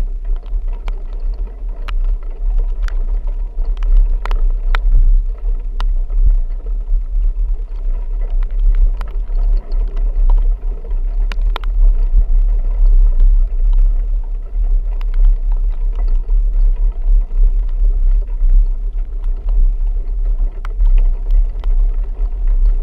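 Low, steady rumble of a vehicle driving, with scattered sharp ticks and knocks over it.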